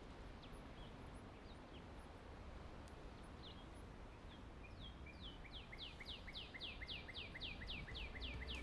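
Small birds chirping over a steady low background hiss. About five seconds in, one songbird starts a fast series of repeated down-slurred notes, about four a second.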